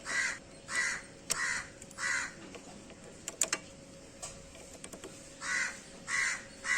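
A crow cawing: four caws in quick succession, a pause, then three more, with a few sharp clicks in between.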